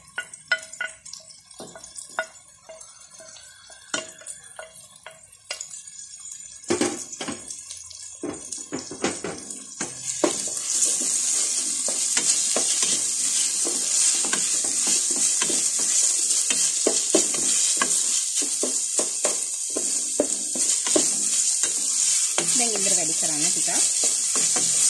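A wooden spoon stirs and scrapes sliced onions, tomatoes, green chillies and curry leaves around a pot. About ten seconds in, a loud, steady sizzle of the vegetables frying in hot oil sets in and continues under the stirring.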